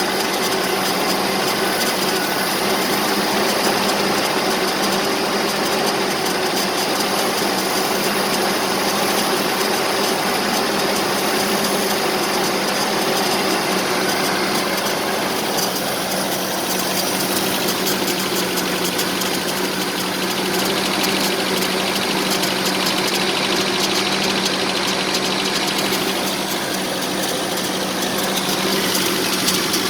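1984 Nissan 720 4x4 pickup's engine idling steadily, a rough idle.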